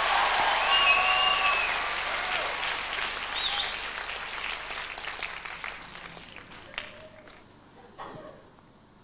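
Studio audience applauding and cheering, with a few whistles early on, the applause dying away steadily over about six seconds.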